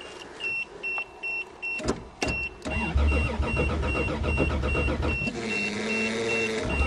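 A car's warning chime beeping two to three times a second, joined about three seconds in by the Toyota Cressida's starter cranking the cold engine, which does not catch. The owner suspects ice in the fuel lines.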